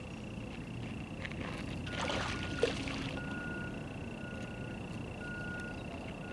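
A hooked grass carp splashing at the surface close to the bank, loudest about two to three seconds in with a sharp slap, over a steady high-pitched tone and a low outdoor rumble.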